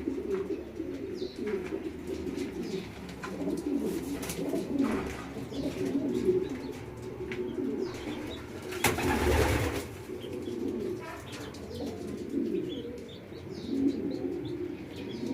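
Pigeons cooing almost continuously in low, rolling coos, with faint high peeps of chicken chicks. There is a brief rustling burst about nine seconds in.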